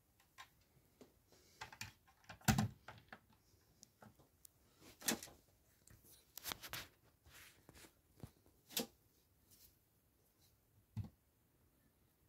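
Handling noise: scattered clicks, knocks and rustles as a small model bus is carried and set down on a wooden desk, the loudest knock about two and a half seconds in.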